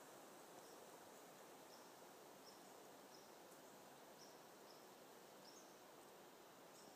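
Near silence: faint outdoor background hiss of woods and field, with faint short high chirps at irregular intervals, about one or two a second.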